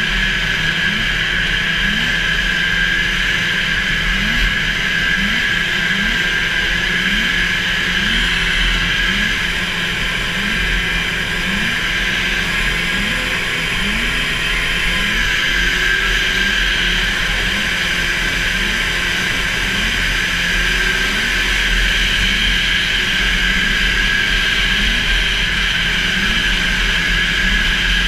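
A 440 super stock racing snowmobile's two-stroke engine held at high revs, a steady high-pitched drone, heard from on board the sled with wind rushing past.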